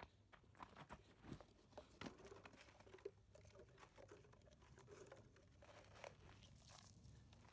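Faint footsteps crunching on dry, stony soil, then irregular crunching and crinkling as plastic water bottles are handled and set down on the dry ground.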